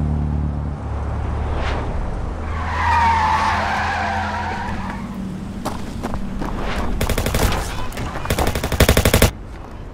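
Film sound design: a low drone, then a wavering high-pitched screech, then two bursts of rapid automatic gunfire. The second burst lasts about a second and cuts off suddenly.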